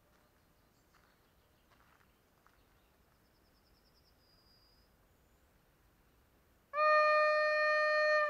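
Horn of the approaching EN71 electric multiple unit sounding one long steady note, starting suddenly near the end after several seconds of near quiet.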